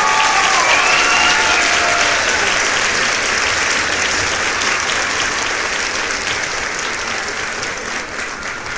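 A few goats bleating in the first two seconds, over a steady, dense crackling noise from the goat pens.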